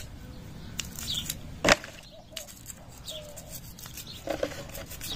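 A small brush scrubbing a motorcycle carburetor body, with short rasping strokes and clicks of the metal being handled, and one sharp knock a little under two seconds in.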